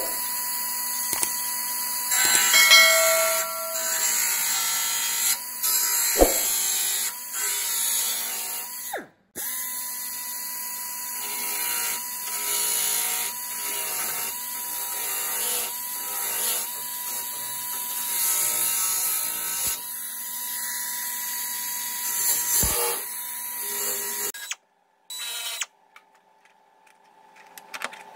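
A high-speed electric power tool running steadily with a whine, the pitch sagging briefly about once a second as it bears on the sheet steel being shaped for the replacement trunk panel. The sound cuts out briefly twice and falls to a faint hum near the end.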